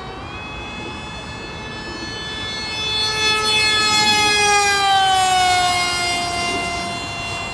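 High whine of a radio-controlled plane's brushless electric motor and propeller. It steps up in pitch right at the start, grows loudest about halfway through as the plane passes overhead, then slides steadily down in pitch as it flies away.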